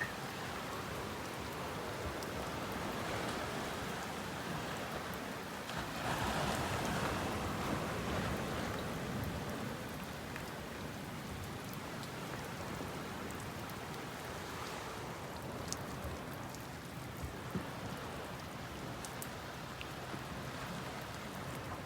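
Steady rain falling, an even hiss that swells louder for a few seconds about six seconds in, with a few faint drop ticks.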